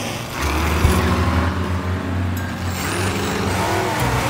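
Cartoon vehicle engine sound effect running steadily, starting about half a second in, over background music.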